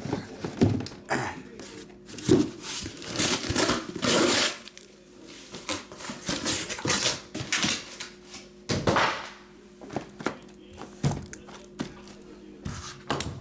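A cardboard case of trading-card boxes being handled and opened on a table: a string of thunks and knocks, with several longer scraping, rustling noises of cardboard sliding and tearing.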